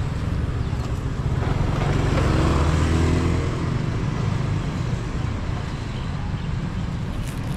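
Street traffic: a motor vehicle's engine passes close, loudest about two to three seconds in, over a steady low rumble of road noise.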